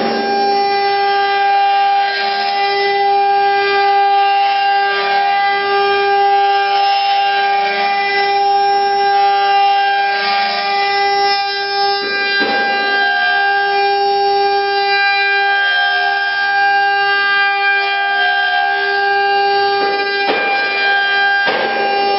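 Spindles of a multi-spindle CNC router running together with a steady high whine, with swells of cutting noise every few seconds.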